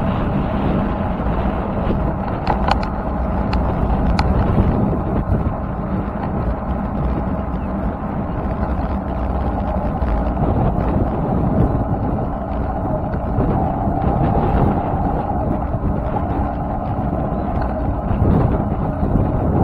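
Steady rush of wind buffeting an action camera's microphone, mixed with road noise from travelling along a tarmac road at speed.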